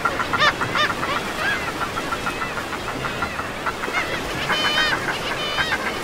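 Many seabirds calling over one another at a breeding colony, a dense chorus of short harsh calls, with a quick run of repeated notes about four and a half seconds in.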